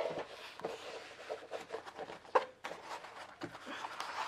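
Diamond-painting canvas and its printed protective cover sheet crackling and rustling as they are rolled back by hand against their curl, with one sharper crackle about two and a half seconds in.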